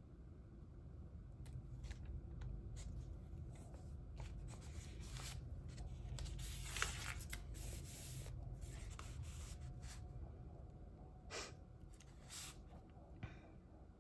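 Quiet paper handling on a Hobonichi Cousin planner: small clicks and ticks of tweezers and stickers, then a longer rustle in the middle as a hand smooths and turns the thin pages, with two light taps near the end.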